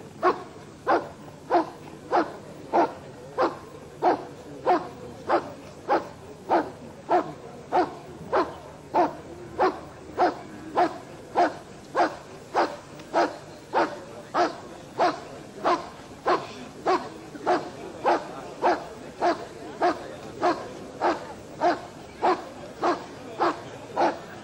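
A dog barking steadily in a regular, unbroken rhythm of about three barks every two seconds.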